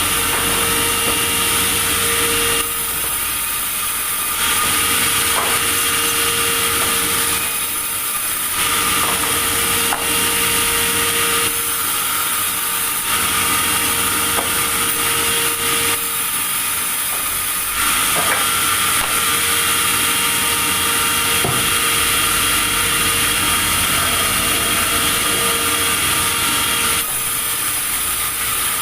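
Sawmill saw cutting through timber, a continuous high, hissing machine noise with a steady hum under it. It grows louder and softer in stretches of a few seconds.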